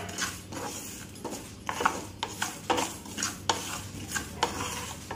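Wooden spatula stirring and scraping whole spice seeds around a nonstick pan as they roast: repeated, irregular scraping strokes with the seeds rustling against the pan.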